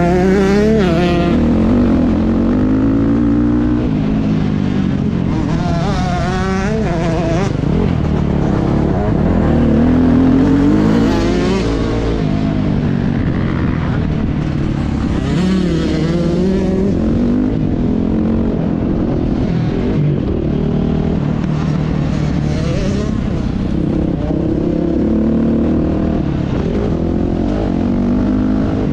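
KTM 250 SX two-stroke motocross bike's engine heard onboard, revving up and falling back over and over as it accelerates, shifts and slows through the corners of the track.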